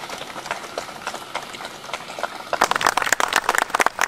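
Outdoor crowd applauding. Scattered noise gives way to a burst of loud, dense clapping about two and a half seconds in.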